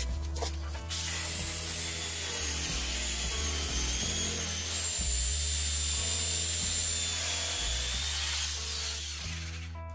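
DeWalt DW341 corded jigsaw running and cutting through a wooden board: a steady high-pitched buzz that starts about a second in, gets louder about halfway through and stops just before the end. Background music plays throughout.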